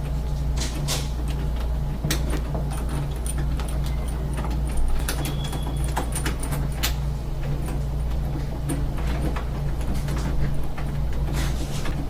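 Scattered small metallic clicks and taps of door-lock parts being handled as the new lock cylinder and its hardware are fitted, over a steady low hum.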